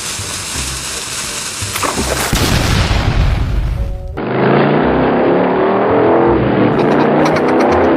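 Background music mixed with dramatic sound effects. A loud rushing rumble comes in about two seconds in and cuts off abruptly about four seconds in. A louder layered sound with held tones then runs until near the end.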